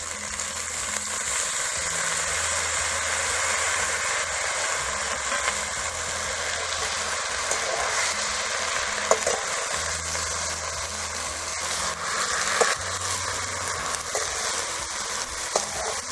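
Fresh drumstick (moringa) leaves sizzling steadily in hot oil with fried onion and green chillies in a steel kadhai, with a few sharp clicks of a metal spatula against the pan as they are turned.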